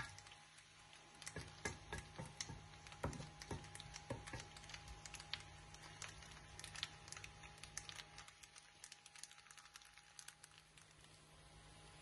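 Pasta frying in a non-stick pan, crackling and popping faintly in the oil. A wooden spatula taps and scrapes against the pan in the first few seconds; after that only the lighter crackle is left.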